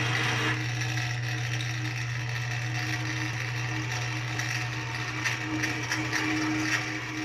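Drill press running with a twist drill boring into a metal plate: a steady motor hum with the scratchy sound of the bit cutting, which grows rougher about five seconds in.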